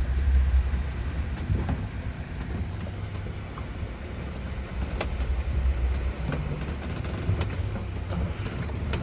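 A small sailboat pitching in rough sea: a steady low rumble of wind and water against the hull, with scattered knocks and creaks.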